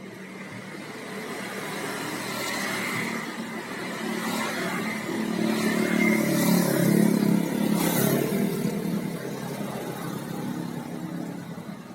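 A motor vehicle driving past, its engine and tyre noise growing louder to a peak about seven seconds in, then fading away.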